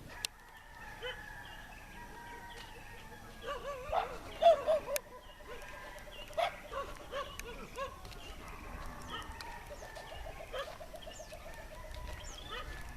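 Chickens clucking and calling in a flock, the calls coming thick and overlapping, loudest about four to five seconds in.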